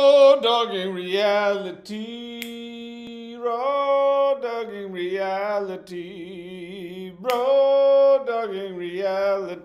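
A man singing solo in long held notes that slide from one pitch to the next, with a wavering vibrato on one note about halfway through.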